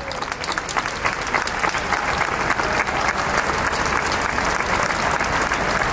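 A large crowd applauding: dense, steady clapping that swells slightly.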